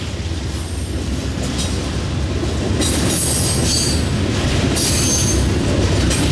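Double-stack intermodal freight train's well cars rolling past with a steady heavy rumble of wheels on rail. High metallic squeals come and go from about three seconds in.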